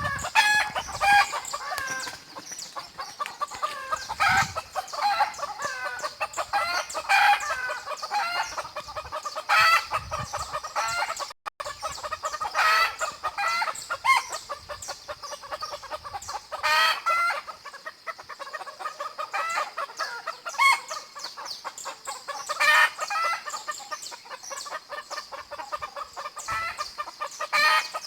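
Chickens clucking and cackling, with a rooster crowing, the loud calls coming every few seconds over a dense run of clucks.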